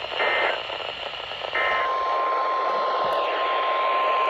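NOAA Weather Radio alert signals over a Midland ER310 emergency radio's speaker: two short warbling bursts of SAME digital data, then the steady single-pitch 1050 Hz warning alarm tone starting about a second and a half in, all over a constant radio hiss.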